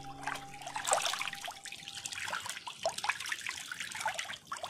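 Water splashing and trickling in a fish tank, with many small irregular splashes and drips.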